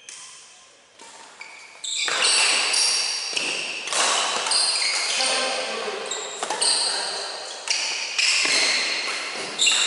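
Badminton rally: rackets striking the shuttlecock every second or so, each hit ringing on in the big hall's echo, mixed with short high squeaks of court shoes on the wooden floor. The rally gets going about two seconds in.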